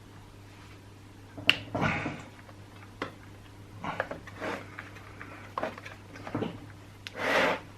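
Hand work on plastic chainsaw parts: a few sharp clicks and short scraping rustles, the loudest near the end, over a steady low hum.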